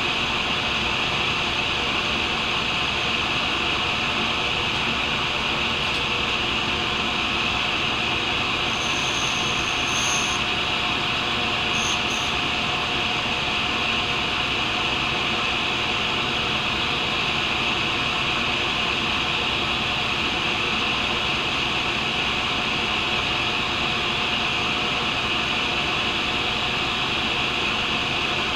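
Tool and cutter grinder running steadily, its wheel grinding a carbide boring tool, with a brief high-pitched tone twice, about ten and twelve seconds in.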